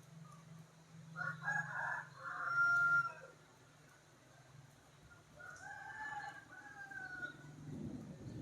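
A rooster crowing twice: a louder crow ending on a held note, then a second, softer crow with an arched rise and fall.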